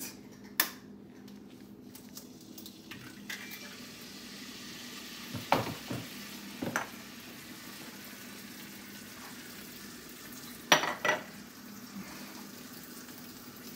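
An egg frying in butter in a cast iron skillet, a steady sizzle, with several short knocks and clinks of kitchen utensils: a few mid-way and a louder close pair near the end.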